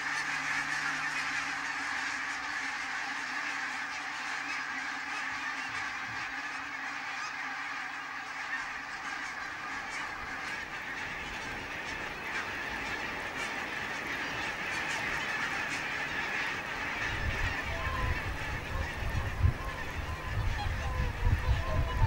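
A flock of barnacle geese calling, many calls overlapping without a break. A low, uneven rumble joins in over the last few seconds.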